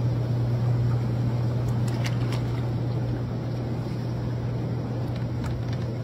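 Hot tub with its jets running: a steady low pump hum under a continuous wash of churning, bubbling water.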